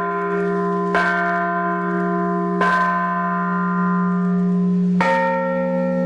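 The main bell of a newly cast bronze church bell set, struck by its clapper three times, roughly every one and a half to two seconds, its deep hum ringing on between strokes. Near the end another, higher-pitched bell sounds with it.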